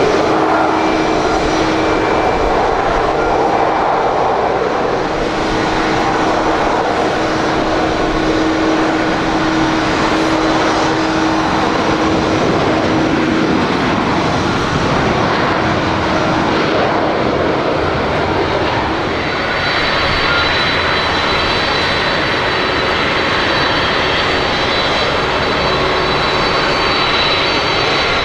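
Boeing 747-400D jet engines running loud and steady. A steady hum fades out about halfway through, and high whining tones come in about two-thirds of the way through.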